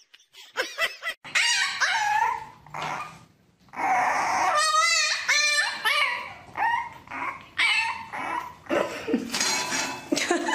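A pet animal crying out again and again: a run of short cries whose pitch bends and wavers, with a fast quavering cry about halfway through.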